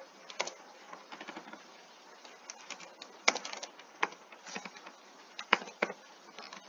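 Computer keyboard typing: irregular keystroke clicks in short runs, with a few louder single keystrokes.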